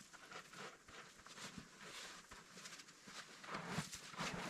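Rocks being handled and set in place by hand: faint scraping and rustling with small stone-on-stone knocks, busiest and loudest near the end.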